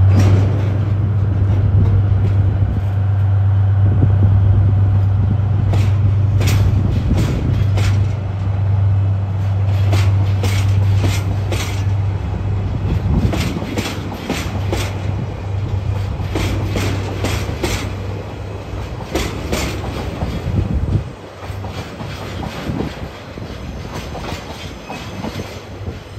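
Freight train of tank wagons, hauled by a JR Freight DF200 diesel locomotive, rolling past with a steady low drone. From about six seconds in, the wheels click over the rail joints in a quick clickety-clack. Near the end the drone drops off suddenly as the last wagons go by.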